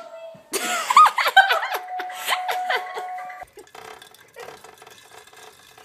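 A person giggling and laughing hard in a run of short, high bursts lasting about three seconds. It then cuts off abruptly to faint clattery noise.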